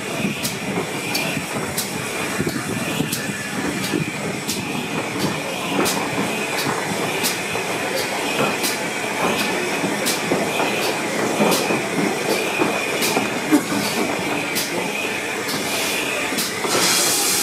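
Steam-hauled passenger train running slowly into a station platform, heard from an open carriage window. The wheels click over rail joints at an even pace, about one and a half clicks a second, over a low rumble and a faint steady squeal. A loud hiss of steam starts near the end.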